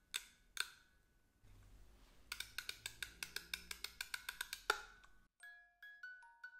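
A few taps on a small wooden music box, then a fast run of ratchet clicks as it is wound, about seven a second. About five seconds in, the music box starts plucking a slow tune of single ringing notes.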